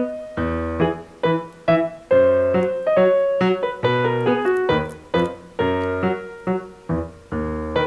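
Background keyboard music: a light piano-like tune of struck notes and chords at a steady, even pace.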